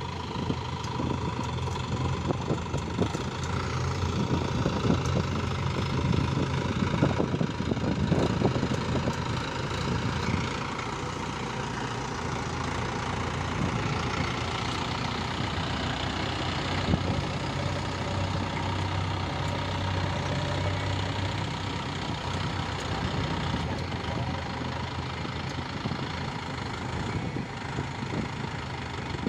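Mahindra 4WD tractor's diesel engine running steadily, a little louder in the first third and then settling at a steady level.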